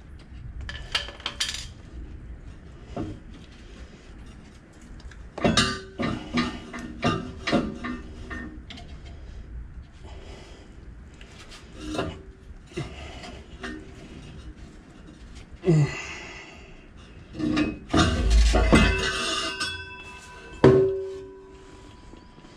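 Corroded steel muffler being wrestled free from under a pickup's exhaust by hand: irregular metal clanks, knocks and scrapes, a few of them ringing briefly, with a louder scraping stretch near the end.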